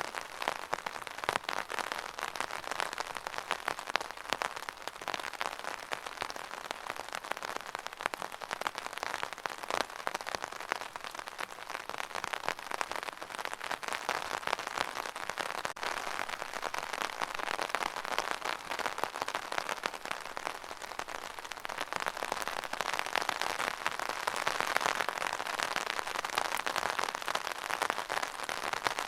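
Steady rain falling on a hard surface, a dense patter of many small drops, swelling slightly near the end.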